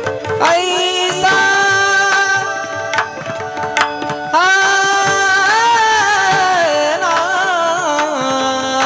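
Devotional bhajan music: a singer holds long, high, wavering notes over steady held tones, with pakhavaj drum strokes throughout.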